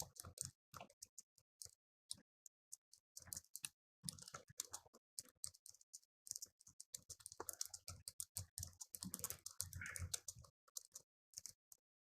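Irregular light clicks and scratchy taps, with short gaps of silence between them, stopping shortly before the end.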